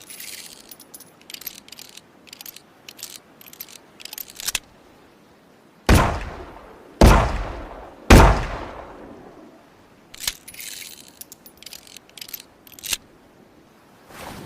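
Revolver sounds: a run of sharp metallic clicks of the action, then three loud gunshots about a second apart, each trailing off, then more metallic clicks, some with a faint ring.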